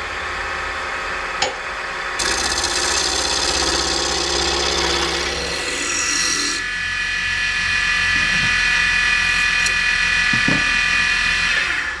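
JET wood lathe running with a dowel blank spinning, its motor giving a steady hum and whine, while a turning tool cuts the wood down in two long stretches of shaving hiss, from about two seconds in and again from about eight seconds in.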